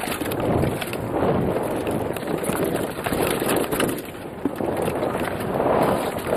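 Wind rushing over the microphone in swells, with a rumble underneath and scattered clicks.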